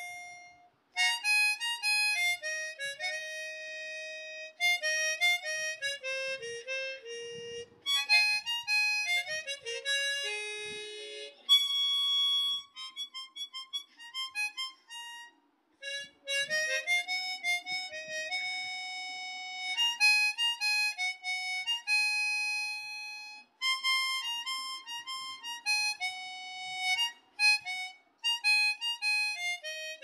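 Background music: a single melody played in short phrases with brief pauses between them.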